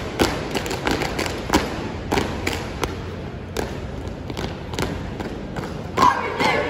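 Unarmed exhibition drill team stomping and slapping in unison: sharp thuds, several a second in an uneven rhythm. About six seconds in a shouted call begins.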